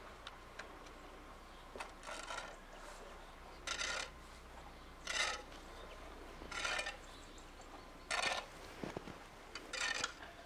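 Slow footsteps crunching in fresh snow, about six evenly spaced steps roughly a second and a half apart.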